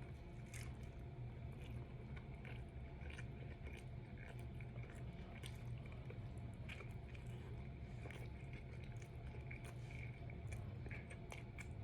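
Close-up chewing and biting into a steak and cheese sub: scattered small wet mouth smacks and squishes over a steady low hum.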